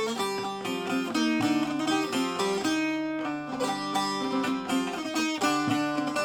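Instrumental music led by a plucked string instrument playing a fast-moving melody of quick notes.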